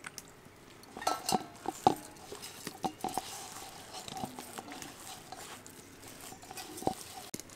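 Thick gram-flour paste being stirred in a bowl: scattered clinks and knocks against the bowl, starting about a second in.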